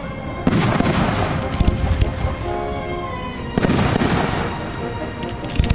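Aerial fireworks shells bursting with two loud booms, one about half a second in and another about three and a half seconds in, each trailing off in a rumble and crackle.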